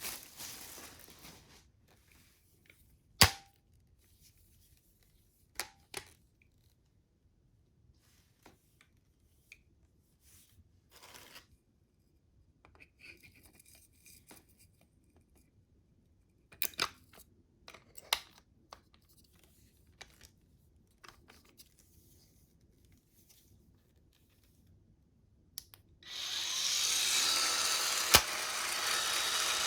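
Parts being handled, with crinkling at first and a few sharp clicks. Near the end a cordless electric spin scrubber's motor switches on and runs steadily with a whirring hum.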